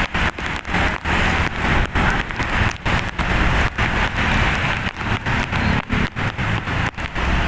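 Road vehicle noise: a steady rushing hiss with a low engine hum underneath, broken by frequent brief dropouts.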